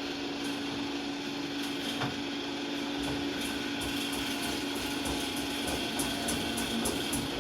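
Machinery in a DR1 diesel railcar's engine room giving a steady motor whine, with a low rhythmic pulsing and ticking that sets in about three seconds in and grows quicker.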